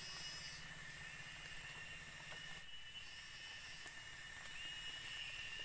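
Steady chorus of tropical forest insects: a high shrill hiss with two held whining tones under it, a higher tone that comes and goes every second or two, and a few faint ticks.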